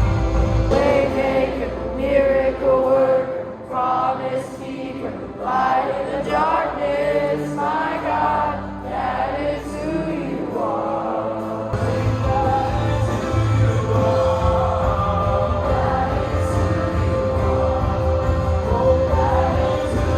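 Christian worship music with several voices singing together. The low bass end drops away for a while, then the full band comes back in a little past halfway.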